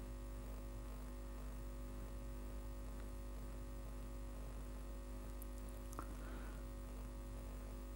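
Steady low electrical hum, with one faint click about six seconds in.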